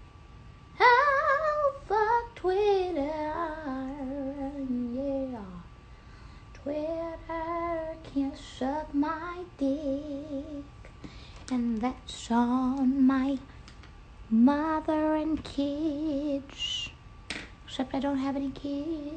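A woman singing unaccompanied in short phrases with wavering, vibrato-laden held notes. She starts about a second in and breaks off briefly around the middle.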